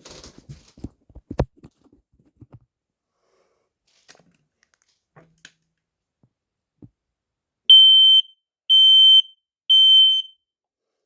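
Home smoke alarm sounding on its test button: three loud, high-pitched beeps, each about half a second long and about a second apart, starting about three-quarters of the way in. This is the three-beep fire-alarm pattern, showing that the alarm works. A few light knocks come in the first second and a half.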